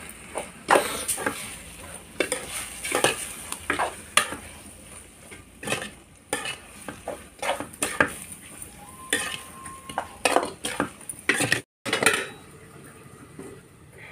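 Spinach being stirred in a steel kadai: a utensil scrapes and clatters against the metal pan in irregular strokes, about one or two a second. A faint sizzle runs underneath.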